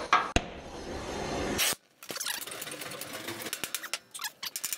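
A gas heating torch with a large heating tip hisses steadily on the steel plow brace, then cuts off abruptly after under two seconds. A rapid, irregular run of clicks and crackles follows while flames burn on the plow.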